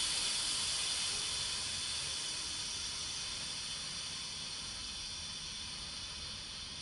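Instant Pot Ultra pressure cooker venting steam through its release valve during a quick release: a steady hiss that slowly fades as the pressure inside drops.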